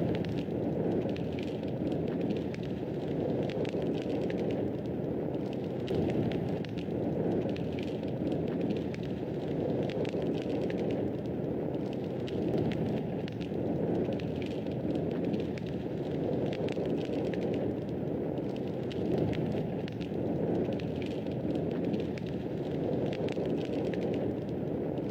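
Fire in a fireplace crackling: a steady low rush with frequent small, sharp crackles and pops scattered through it.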